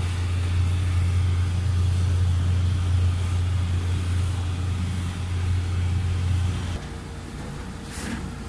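A steady low mechanical hum, like an engine running, that cuts out about seven seconds in. A brief rustle follows near the end.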